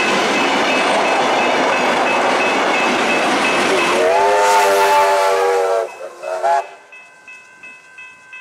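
Steam-hauled heritage train passing close, its carriages rolling by with a steady rush and hiss of steam. About four seconds in the steam locomotive sounds a long whistle blast that falls slightly in pitch, then a short second toot, after which the sound drops away suddenly.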